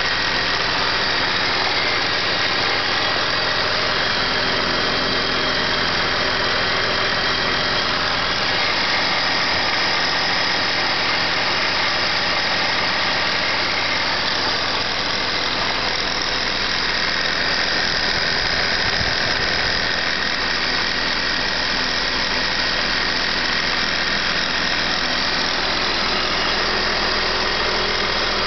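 BMW E39 engine idling on a cold start, with a steady high whine over the running engine and a noise from the belt drive around the alternator. The uploader puts the knock down to the hydraulic belt tensioner.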